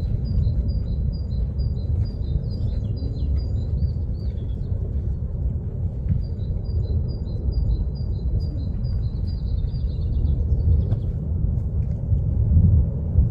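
Kilauea's lava fountain running as a continuous low rumble. Over it, a bird sings a rapid string of high two-note chirps in two runs of several seconds each.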